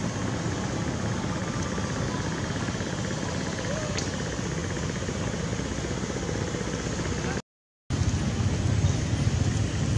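Steady outdoor background rumble with no distinct event, heaviest in the low end. It drops out completely for about half a second a little after seven seconds in, at an edit, and comes back slightly louder.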